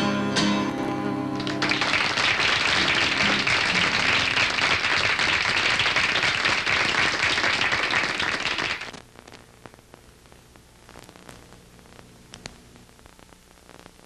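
Acoustic guitar ringing out the song's final chord, then studio audience applause for about seven seconds that cuts off abruptly. Only faint room hum and a few small clicks follow.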